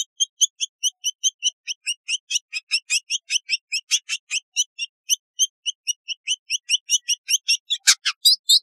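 Village indigobird singing: a fast, even run of short high chirps, about six a second, with a few louder notes near the end.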